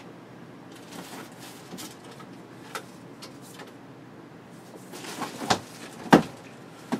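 Items being handled and lifted out of a cardboard shipping box: faint scattered rustles and ticks, then a few sharp knocks in the second half, the loudest about six seconds in.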